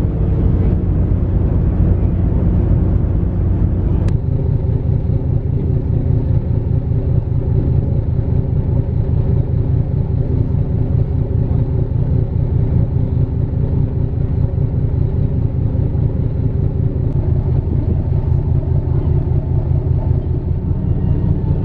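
Icebreaker sightseeing ship Aurora's engine running steadily under way, a loud low drone with a fast even throb, heard from the deck; its tone shifts slightly about four seconds in.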